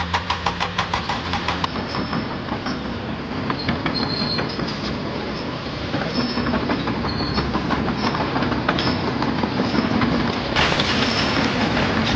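Steady mechanical rumbling and clatter, with a fast, regular knocking in the first second or two.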